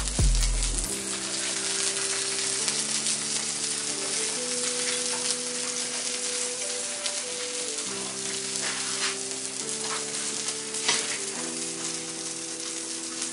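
Food frying in a hot pan: a steady sizzling hiss with small crackles throughout. Soft background music with held chords plays underneath.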